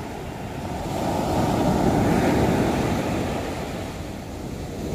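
Heavy sea surf breaking and washing up a sandy beach, swelling to a peak about two seconds in, ebbing, then building again near the end.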